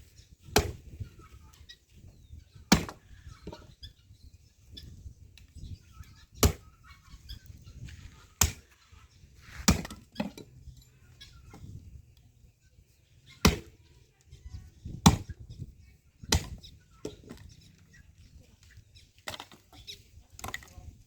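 Firewood being chopped by hand: about ten sharp chopping blows into wood, spaced irregularly a second or a few seconds apart.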